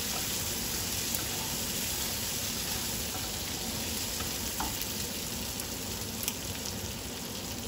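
Whole cherry tomatoes with onion and green chillies sautéing in oil in a pan, sizzling steadily, with a couple of faint light clicks.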